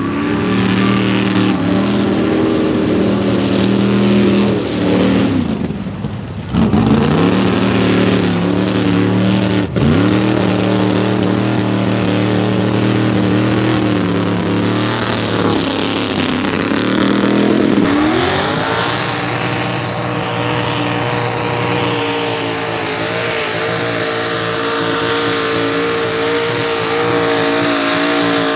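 Chevy pickup mud racing truck's engine running hard through the mud. Twice in the first ten seconds the revs drop sharply and climb back. About two-thirds through they climb and hold steady and high.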